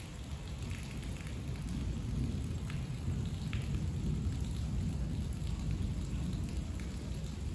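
Heavy rain falling with a low rolling rumble of thunder that swells about two seconds in and carries on, with a few sharp drop ticks standing out.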